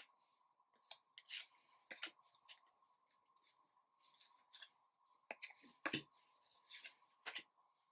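Trading cards slid one at a time off a stack in the hand, making short soft swishes of card rubbing on card, with a couple of light taps about six and seven seconds in as cards are set down on a wooden table.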